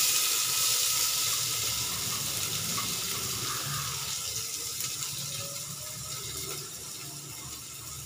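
Chopped onions sizzling in hot cooking oil in a pan. The sizzle is loud at first, just after the onions go in, and slowly grows quieter.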